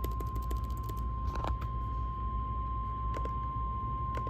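Steady single-pitch alert tone, the 1050 Hz NOAA Weather Radio warning alarm that announces a new warning message, sounding over a low electrical hum. A few sharp clicks come through it.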